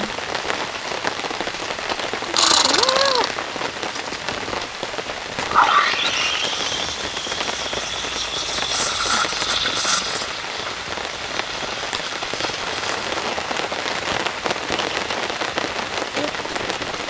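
Steady rain falling, with a few brief louder noises over it about two and a half, six and nine seconds in.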